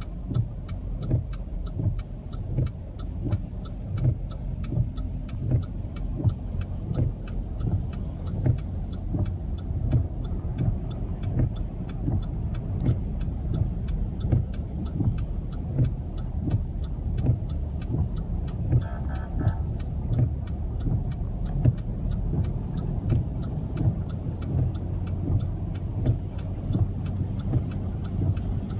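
Car running with a steady low rumble, overlaid by quick, regular ticking about two or three times a second. A short tone sounds a little past the middle.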